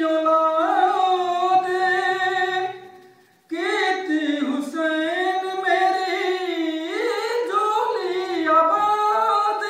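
A man singing a devotional song in praise of Imam Hussain, unaccompanied, in long held melodic phrases with a short breath pause about three seconds in.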